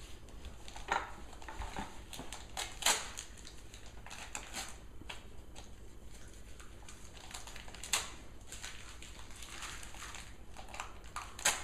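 Gift-wrapping paper being torn and crinkled off a boxed present by small hands: a run of short rustles and rips, with a few sharper tears standing out.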